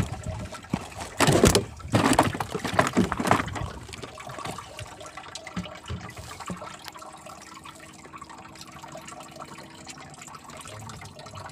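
Water sloshing and trickling around a small wooden fishing boat, with several louder bursts in the first few seconds, then a quieter steady wash.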